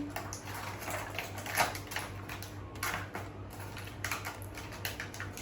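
Small plastic toy cars and their packaging being handled: an irregular run of light plastic clicks and taps.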